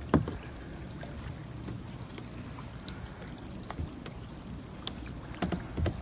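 Kayak paddling through still floodwater: scattered splashes and knocks from the paddle, the loudest just after the start and two more near the end, over a low steady rumble.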